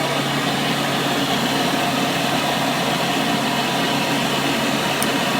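Hoover model 700 vintage upright vacuum cleaner running steadily, its motor and fan giving an even hum and rush of air, with the crevice tool fitted and drawing very little suction.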